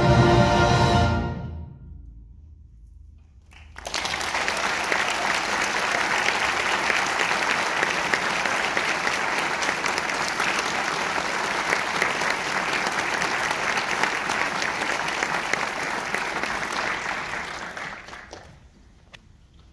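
A concert band's final chord held and then dying away about a second in; after a short silence the audience breaks into applause that lasts about fourteen seconds and then fades out.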